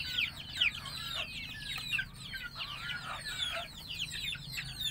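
A cage full of young chicks peeping continuously: many short, high peeps that slide downward in pitch, overlapping one another.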